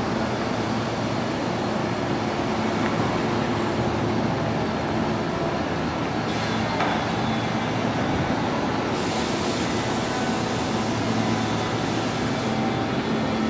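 1960 MGA's 1800 four-cylinder engine running steadily.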